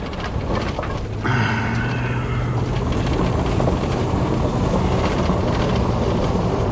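A vehicle driving along a gravel lane, heard from inside the cab: a steady engine hum with dense crunching and crackle from the tyres on gravel. It gets louder about a second in, as the vehicle pulls onto the gravel.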